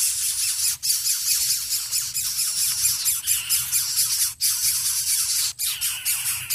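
Coucal nestlings begging with loud, harsh hissing as the parent feeds them at the nest, a rasping hiss that flutters rapidly with a few brief breaks.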